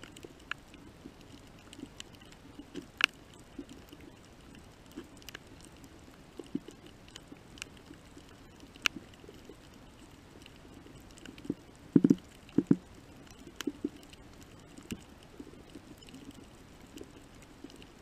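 Coral reef heard underwater: scattered sharp clicks and short low-pitched pops over a quiet background, with the loudest cluster of pops about twelve seconds in.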